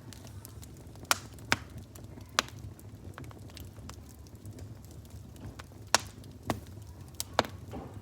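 Fire crackling: a steady low rush with about seven sharp pops scattered irregularly through it.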